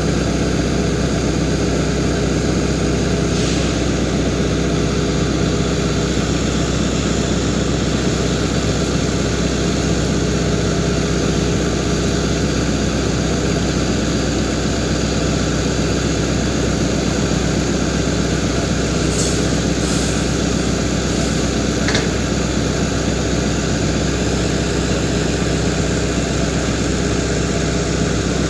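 Hitachi Zaxis excavator's diesel engine idling steadily, heard close, while its bucket is held still. A few faint clicks of shovels on concrete come through now and then.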